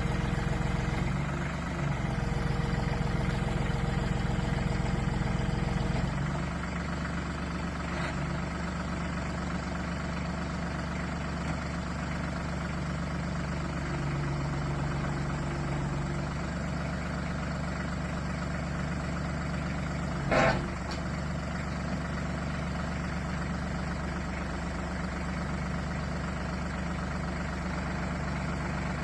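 Branson compact tractor's diesel engine running steadily, its level dropping slightly about six seconds in, with one sharp knock about twenty seconds in.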